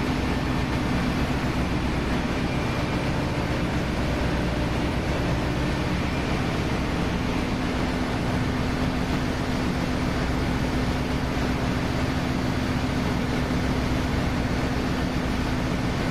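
Steady drone of a ship's engine-room machinery: a dense, even rushing noise with a constant low hum running through it, which grows a little stronger about halfway through.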